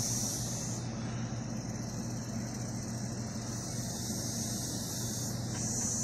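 Chorus of Brood X periodical cicadas: a steady high-pitched drone that is louder at the start, eases about a second in, and swells again near the end. A low steady hum runs underneath.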